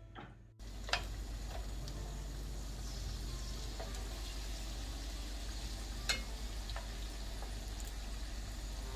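Samosas sizzling steadily as they fry in a pan of hot oil, with a few sharp clinks of metal spoons against the pan as they are turned.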